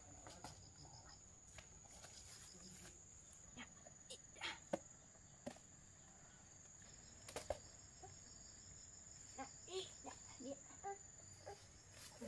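Insects trilling with one steady high-pitched note, with scattered faint clicks and knocks and a few short faint calls in the second half.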